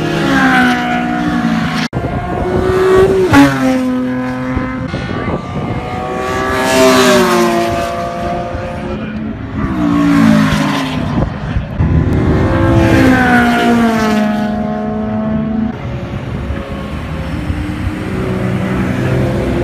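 Race cars passing one after another at speed on a road course, about five in turn, each engine note rising as it revs and falling away as it goes by. The sound breaks off abruptly about two seconds in, and it is quieter for the last few seconds.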